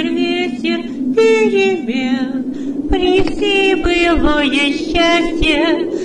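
Background music: wordless voices singing drawn-out, gliding notes, several at once, over a steady low drone.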